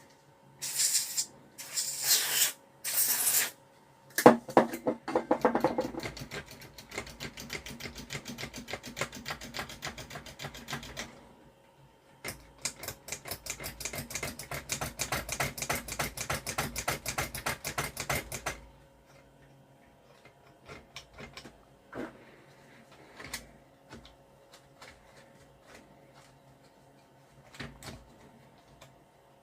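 Three short hisses of aerosol cleaner spray, then a control being worked back and forth, giving a fast, typewriter-like run of clicks for several seconds, a short pause, and a second longer run. This is the cleaner being worked into a gunked-up switch or pot. A few scattered light ticks follow.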